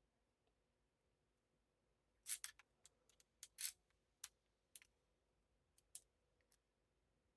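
Lock pick and tension wrench working the pins of a clear practice lock: a quick run of about a dozen sharp metal clicks and ticks, starting about two seconds in and stopping about a second before the end.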